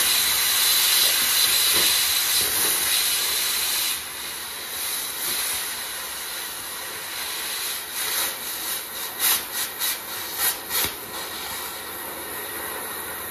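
Oxy-acetylene cutting torch hissing steadily as it cuts into the end of a combine auger. The hiss drops noticeably about four seconds in, and several short sharp pops come in the second half.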